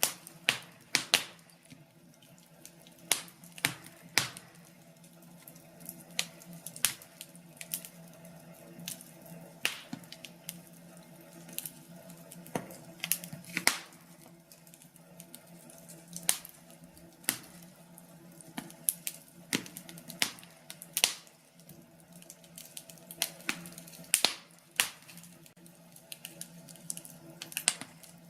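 Wood fire crackling in a fireplace, with sharp irregular pops and snaps scattered throughout.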